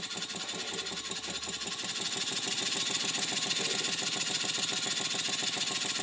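Stuart 5A model steam engine running on compressed air at raised pressure, its single cylinder giving rapid, even exhaust beats. It grows louder over the first two seconds, then runs steadily.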